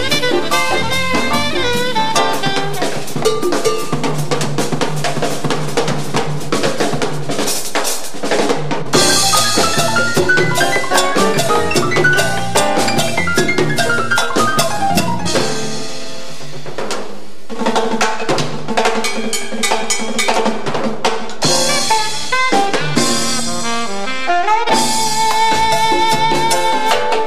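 Jazz band playing: saxophone over electric bass, congas and drums. The saxophone plays a long rising-then-falling run in the middle and a held note near the end.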